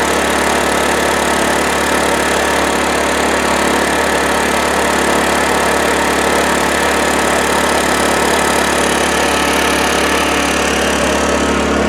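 Honda EU2000i inverter generator's single-cylinder four-stroke engine running steadily, heard through the homemade baffle box built around it.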